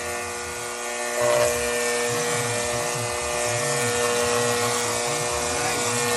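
Handheld electric paint sprayer running while spraying paint onto a wall: a steady motor hum with a hiss of spray, swelling briefly a little over a second in.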